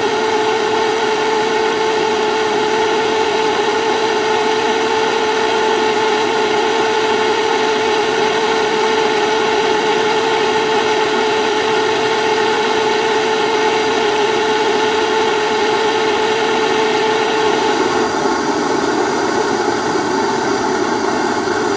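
Propane torch burning steadily: a constant roar carrying a steady hum.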